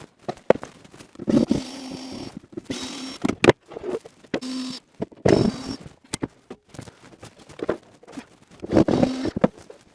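A power drill running in several short bursts of under a second each, mixed with sharp knocks, clicks and scraping, as a wooden rack is drilled and screwed up on a wall.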